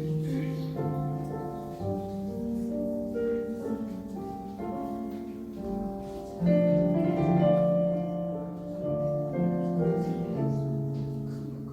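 Keyboard playing a hymn: held chords under a melody line, growing louder about six and a half seconds in.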